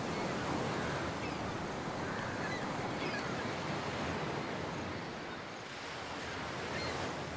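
Ocean surf breaking and washing up onto a sandy beach, a steady rush of waves that eases slightly about five seconds in.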